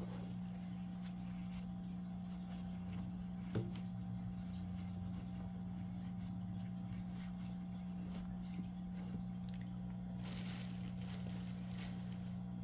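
Soft rustling and squishing of polyester fiberfill being pushed into a crocheted segment, with a small click a few seconds in and a brief louder rustle near the end, over a steady low hum.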